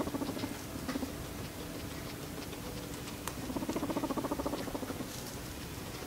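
Guinea pig giving short purrs, each a rapid low pulsing: one fading out just after the start and another from about three and a half seconds in, lasting about a second and a half.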